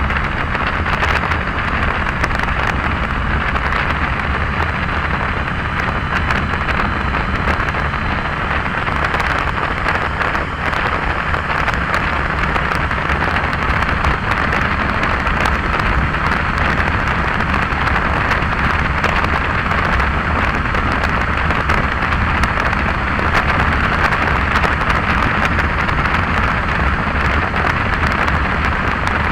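Heavy wind noise on the microphone while riding on the road: a loud, steady rushing hiss that buries everything else.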